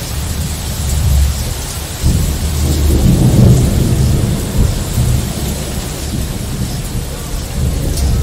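Thunder rumbling low over steady hissing rain; the rumble swells about two seconds in, is loudest around three and a half seconds, then rolls on more quietly.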